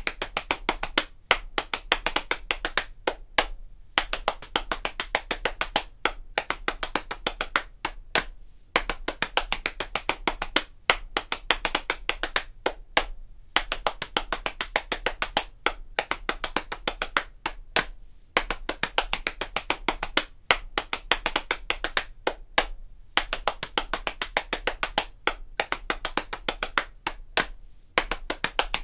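Hambone body percussion: two parts of hand slaps on the thighs and body played together in fast, interlocking rhythm. The strokes come in short phrases with brief breaks between them.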